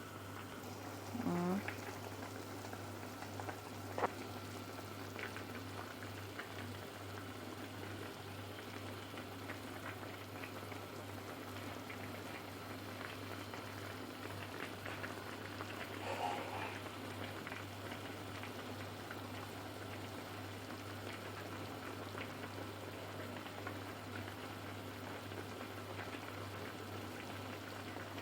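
Chicken masala curry boiling in a pot: a steady bubbling, crackling hiss, over a constant low hum. A single sharp click about four seconds in.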